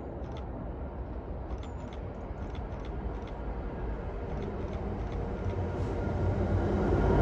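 Class 66 two-stroke V12 diesel locomotive approaching at the head of a biomass hopper train, its low rumble growing steadily louder as it nears.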